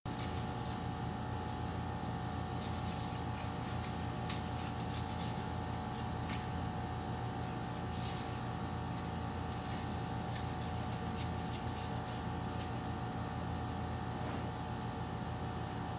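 Steady appliance hum with several low tones throughout. On top of it, a wooden spatula scrapes and clicks lightly against a metal baking tray as it lifts mini pizzas off.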